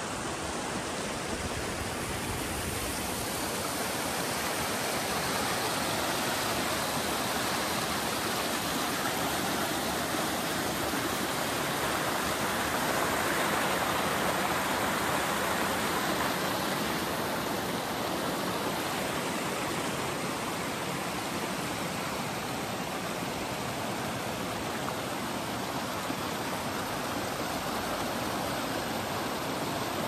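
Rushing water of a mountain stream, a steady even roar that grows a little louder toward the middle and then eases.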